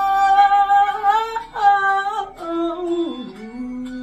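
A voice singing long held notes without clear words, with short breaks between phrases and a slide down in pitch about three seconds in.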